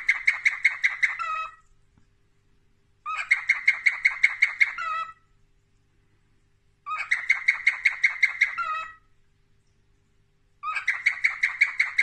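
Cockatiel chirping in rapid runs of about seven sharp chirps a second. Each run lasts about two seconds, with pauses of about two seconds between them, four times over.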